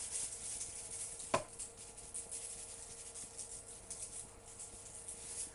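Salt shaker of fine sea salt being shaken over vegetables on a baking tray: a soft, fine rattling hiss that thins out after about two seconds, with one sharp tap about a second and a half in.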